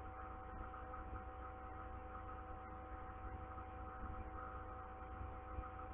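Steady low electrical hum with several faint steady tones above it.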